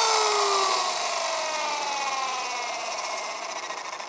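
E-flite Blade SR electric RC helicopter spooling down on the ground: the motor and drive whine falls steadily in pitch and fades as the rotor blades slow.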